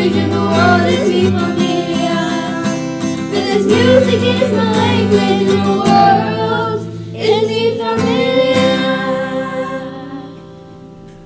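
Children's mariachi group singing together with guitar accompaniment. Near the end the song closes on a long held note that fades away.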